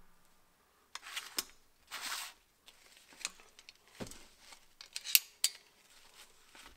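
Steel drum-brake hardware being handled on a workbench: return springs, brake shoes and pliers clink and clatter in a string of separate sharp knocks, with a brief scraping rasp about two seconds in and the loudest clicks about five seconds in.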